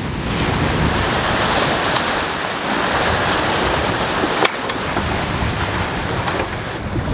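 Rushing water and wind on a sailing yacht under sail in a choppy sea: waves breaking along the hull, with wind blowing over the microphone. A single brief click about four and a half seconds in.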